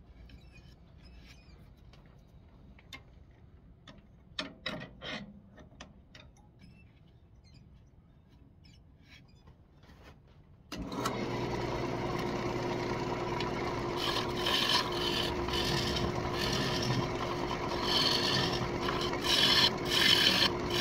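Wood lathe stopped, with a few sharp knocks about four to five seconds in. About halfway through, the lathe is running and a gouge cuts the inside of a spinning walnut bowl: a steady motor whine under the scraping hiss of the cut, which gets louder near the end.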